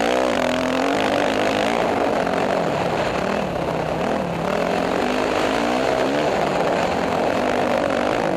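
Motocross dirt bike engine, heard from the rider's helmet, revving up and dropping back again and again as the rider accelerates and rolls off the throttle around the track.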